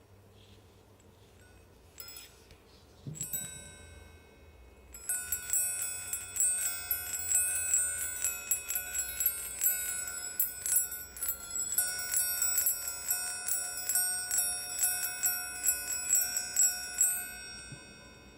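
Chimes ringing: a couple of single strikes, then from about five seconds in a dense, irregular jangle of overlapping strikes with ringing tones, fading near the end.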